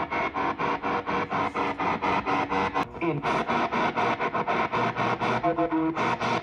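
A spirit box sweeping the radio band, chopping between stations about five or six times a second, with snatches of static, music and broadcast voices. Near the end comes a brief fragment that is taken for a voice saying "I love you".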